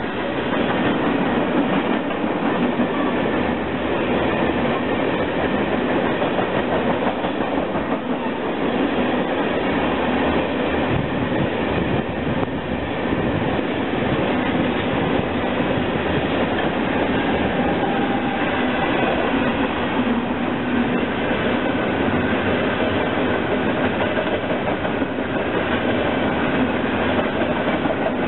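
CSX freight train's tank cars, centerbeam flatcar and container cars rolling past close by: a steady rumble and clatter of steel wheels on the rails, with wheels clicking over the rail joints.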